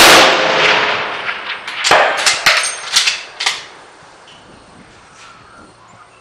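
A .300 Remington Ultra Magnum rifle shot with a long rolling report. About two seconds later comes a cluster of several sharp cracks and clanks.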